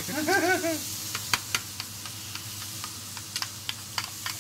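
A metal spoon clicking against a small glass bowl while a sauce is stirred, with the clicks coming more often near the end, over the steady sizzle of a burger patty frying in a grill pan. A short vocal sound comes near the start.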